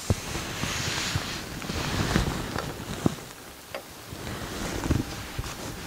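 Wind noise on the microphone, with a hiss in the first second and a few sharp knocks and rustles as fishing tackle is handled.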